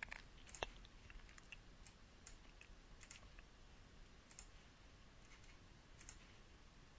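Faint, scattered computer mouse clicks over near-silent room tone, the sharpest one a little over half a second in.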